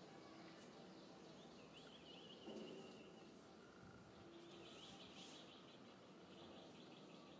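Near silence: faint outdoor background hiss with a few faint high chirps, and one brief soft sound about two and a half seconds in.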